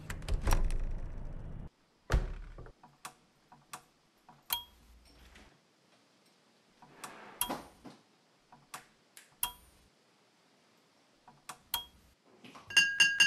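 A front door being worked open, which cuts off suddenly, then a heavy thud. A string of sparse sharp knocks and clicks follows, several with a short metallic ring.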